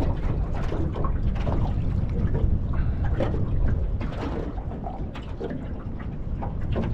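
Choppy sea water slapping and lapping irregularly against the side of a small aluminium boat, over a steady low rumble of strong wind on the microphone.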